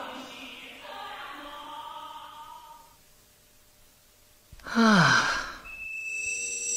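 A male voice singing unaccompanied, a held line fading out about three seconds in; after a short pause, a loud sigh that falls steeply in pitch, about five seconds in. A music cue starts near the end.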